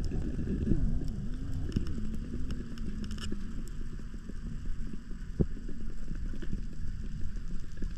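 Underwater noise picked up through a camera housing: a steady low rumble with scattered clicks and ticks, and a wavering hum over the first three seconds.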